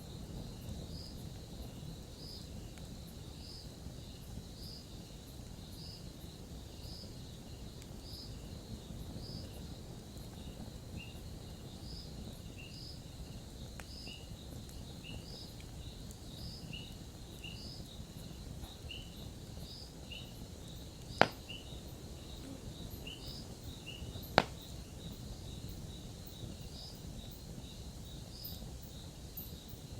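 Campfire burning with a low steady rumble and faint crackles, and two sharp loud pops about 21 and 24 seconds in. Regular chirping runs throughout, about one chirp a second, with a second, lower chirper joining about a third of the way through.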